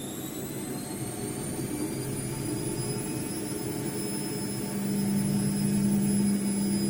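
ATLANT washing machine's drum motor speeding up into the spin: a whine that rises in pitch, then holds at a steady high pitch. The drum's hum grows louder about five seconds in.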